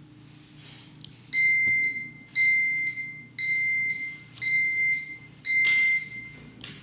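Digital alarm clock's alarm beeping: five high electronic beeps, each almost a second long, about one a second. A faint click comes just before the first beep, and clicks near the end as the beeping stops.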